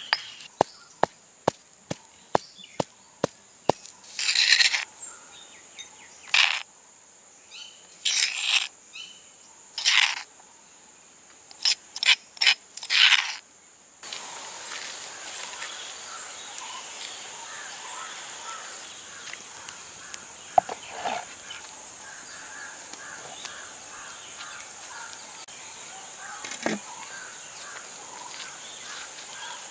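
Stone pestle pounding in a stone mortar, sharp regular knocks about two and a half a second for the first few seconds, then several louder scraping bursts. About halfway through the sound changes suddenly to a steady outdoor hum of insects with a high steady buzz and a few faint chirps.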